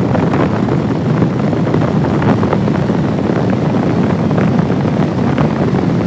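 Loud, steady rush of wind and road noise from a moving road vehicle.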